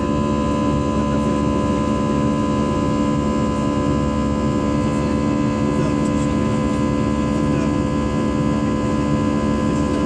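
Steady drone inside an airliner cabin: the even rumble of engines and air, with a constant hum of several held tones over it.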